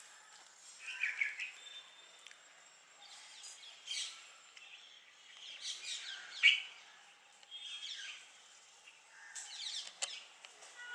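Small birds chirping in short clusters of quick notes every second or two, the loudest a little past the middle, over a faint steady hiss.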